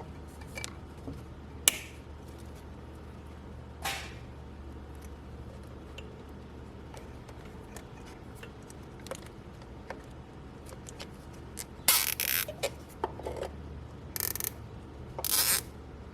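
Nylon zip ties being pulled tight and trimmed on boost-controller hoses: scattered sharp clicks and snaps, then several louder ratcheting zips near the end, over a faint steady low hum.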